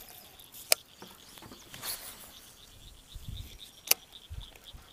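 Insects chirping steadily in a high, pulsing buzz, with two sharp clicks about three seconds apart from handling of the rod and baitcasting reel.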